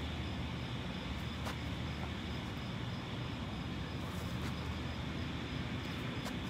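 Steady low outdoor rumble, with a few faint soft thumps from hands and feet landing on grass during burpees.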